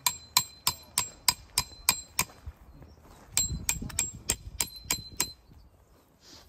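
Metal tent stakes being driven in with a hammer: sharp ringing clangs about three a second, a run of eight strikes, a pause, then five more before the striking stops.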